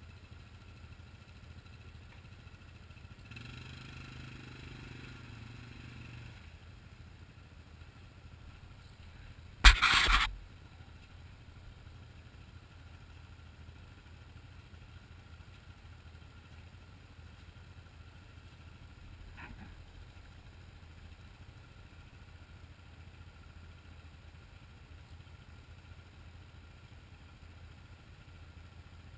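ATV engines idling with a low steady hum, one of them revving a little louder for about three seconds. About ten seconds in there is a single loud, short thump lasting about half a second.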